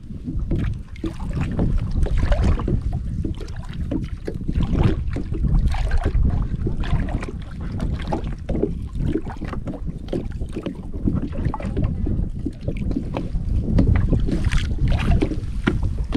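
Water splashing and slapping around a small boat, with many irregular knocks and wind rumbling on the microphone.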